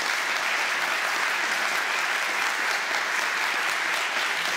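Audience applauding steadily at the end of a conference talk.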